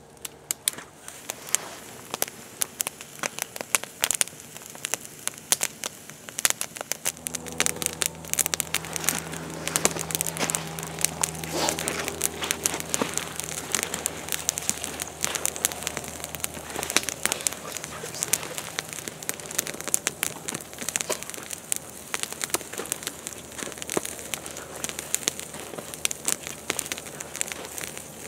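Wood campfire crackling, with many sharp pops and snaps; the crackling gets louder and denser about seven seconds in.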